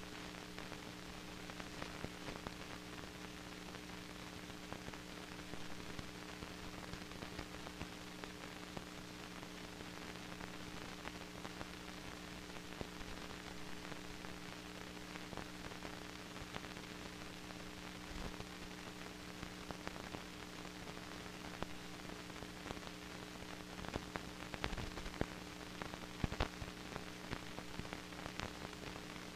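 Steady hiss with scattered crackles and clicks over a low, constant electrical hum: the bare noise floor of an old film transfer with no soundtrack. The clicks come a little thicker near the end.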